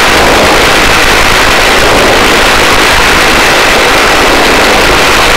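Loud, steady helicopter noise at the open cabin door during a hover: rotor and engine din with rushing wind, and a faint steady high whine above it.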